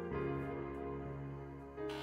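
Background solo piano music: slow, held chords, with a new chord about once a second.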